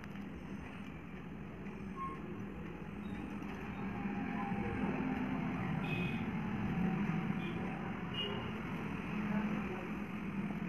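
Steady low background rumble with a few faint short high tones over it.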